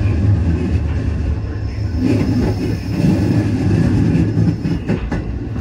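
Commuter train running, heard from inside the carriage: a steady rumble of wheels on the track, with a few short clicks of the wheels over rail joints near the end.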